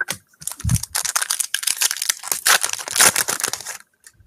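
A foil trading-card pack wrapper being torn open and crinkled, a dense run of crackling that stops shortly before the end.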